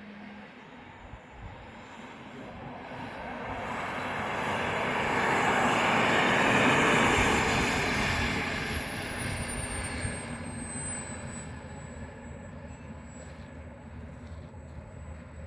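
Small turbine jet engine of an RC model jet passing by: a rushing jet noise swells to a peak about halfway through and then fades, its thin high whine dropping in pitch as it goes past.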